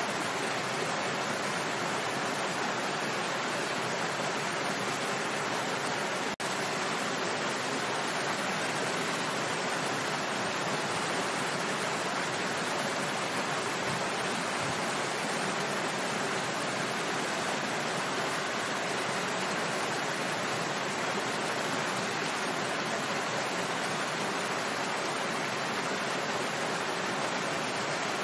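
Small waterfall: water falling and splashing in a steady, unbroken rush, with a split-second dropout about six seconds in.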